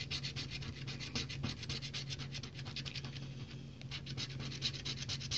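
Scratch-off lottery ticket being scratched: rapid back-and-forth scraping strokes over the latex coating, about ten a second, with a brief pause a little past the middle.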